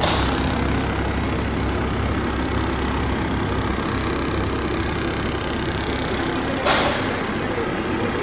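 All-servo flexo label printing press running steadily, its printed label web feeding over the rollers and rewinding onto a roll. A short hiss sounds near the end.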